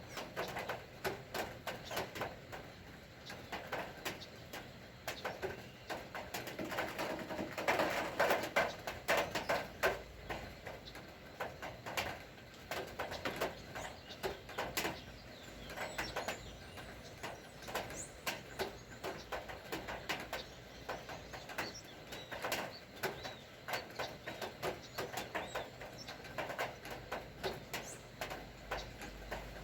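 Rain falling, heard as dense irregular dripping ticks, with birds calling over it, among them a dove cooing.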